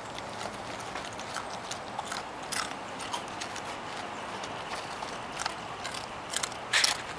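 A dog rooting for crumbs inside a crisp packet, the packet and the plastic carrier bag around it crinkling in irregular crackles as it noses and licks, with a louder burst of crackling near the end.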